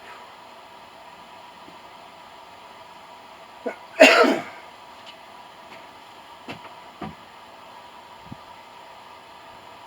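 A person coughs once, about four seconds in, from the smoke of burnt plastic or rubber in the shed, over a steady low background hiss; a few faint clicks follow.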